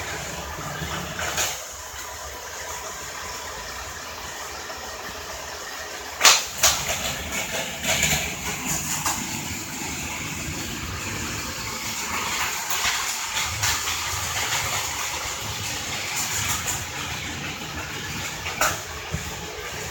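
Vintage battery-powered Plarail toy trains and Pla-Highway buses running on plastic track: a steady small-motor whir and wheel rattle, with several sharp plastic clacks, the loudest about six seconds in.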